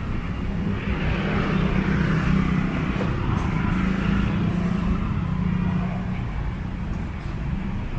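Road traffic: engines and tyres of passing vehicles. It grows louder from about a second in as one passes close, then eases off after about five seconds.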